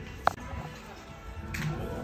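Background music, with one sharp click about a quarter of a second in.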